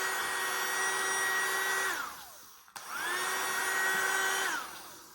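Mini USB vacuum cleaner's small motor whining steadily, then switched off about two seconds in so it winds down with a falling pitch. It is switched on again, rising quickly to speed, and near the end switched off again and winds down.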